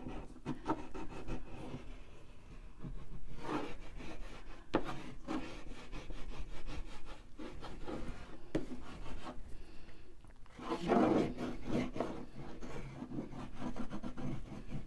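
Soft 9B graphite stick scribbling and scratching across heavy paper in quick repeated strokes, with a louder run of strokes about 11 seconds in.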